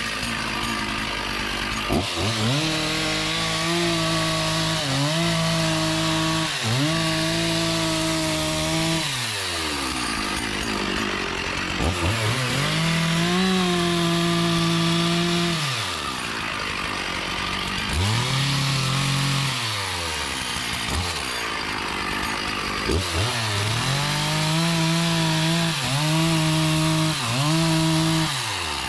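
Chainsaw cutting teak, its engine held at high revs, then dropping away in a falling whine each time the throttle is let off (about five times), then revving back up.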